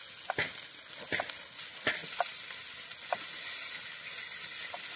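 Pieces of meat sizzling in a saç pan, a shallow sheet-iron pan, over a wood fire: a steady frying hiss while a flat spatula stirs the meat. A few sharp clicks and pops come in the first three seconds, then the sizzle runs evenly.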